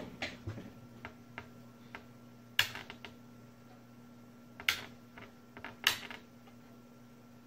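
Sharp clicks and knocks from hands working the front panel of an opened SUNKKO 709AD spot welder while it is switched on. The three loudest come about two and a half, four and a half and six seconds in, with lighter ticks between them.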